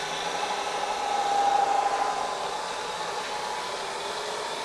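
Supermax YCM-16VS vertical milling machine head running in its low speed range, with the spindle at about 300 RPM: a steady whirr with a few steady tones that swells slightly about a second in, then settles.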